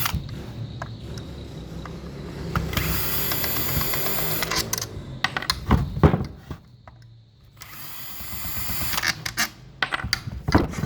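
A small power drill-driver runs in two short bursts, loosening screws on an angle grinder's housing, with a few sharp knocks of metal parts in between.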